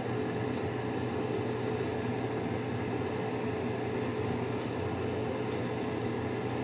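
Steady appliance hum with a constant mid-pitched tone, under the faint stirring of yeast liquid into flour with a spatula in a bowl and a few light clicks.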